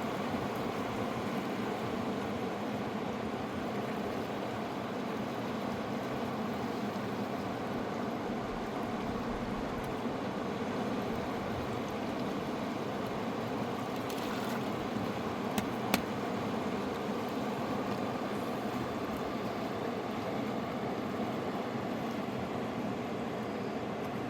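A fast mountain river rushing in a steady, even roar, with two sharp clicks about two-thirds of the way through.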